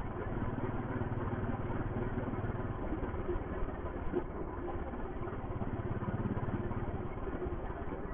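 Royal Enfield Thunderbird's single-cylinder engine running steadily while the motorcycle rides along, heard from the rider's seat. Its low beat eases about three seconds in and picks up again a second or so later.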